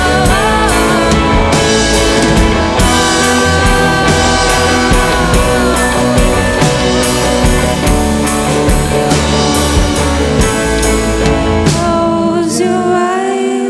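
A live band plays a rock song: drum kit, upright double bass and electric guitar under a woman's lead vocal. Near the end the drums and bass drop out, leaving the voice and a thinner accompaniment.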